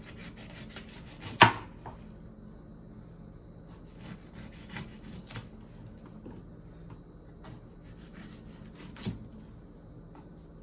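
Knife cutting an avocado on a cutting board: one sharp knock about a second and a half in, then scattered light taps and scrapes, with a smaller knock near the end.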